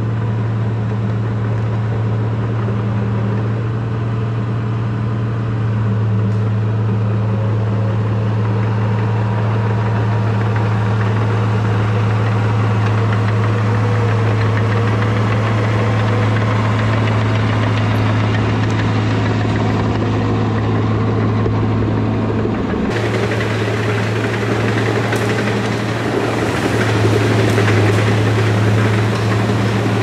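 Cat D5 bulldozer's diesel engine running steadily with a low drone. About three-quarters of the way through, the sound changes abruptly and more clatter and hiss sits on top of the same drone.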